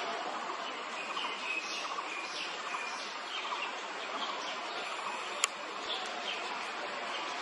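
Birds chirping, with many short repeated chirps over a steady background hiss, and one sharp click about five and a half seconds in.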